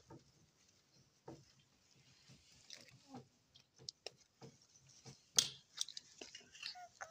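Sparse small clicks of metal nail clippers snipping fingernails, with one sharper snip about five seconds in.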